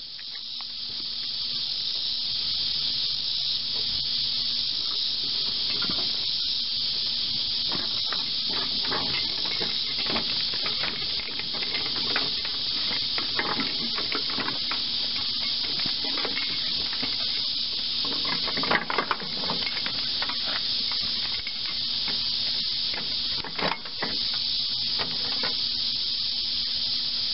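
A steady, loud high-pitched insect chorus, cicada- or katydid-like, runs throughout. Over it come scattered knocks, clunks and rattles as a heavy old flywheel engine on a small iron-wheeled cart is pulled and shifted into position.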